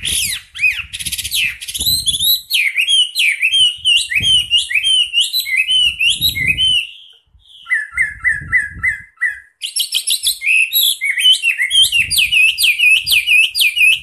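Chinese hwamei (melodious laughingthrush) singing loudly: a fast run of varied whistled phrases, with a short break about seven seconds in. A string of lower, evenly repeated notes follows, then the rapid song picks up again.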